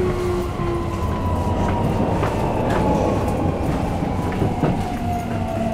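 Keikyu New 1000 series train's Toyo hybrid SiC VVVF inverter whining under the car floor, its tones slowly falling in pitch as the train slows for the next station, over steady wheel-and-rail rumble with a few rail-joint clicks.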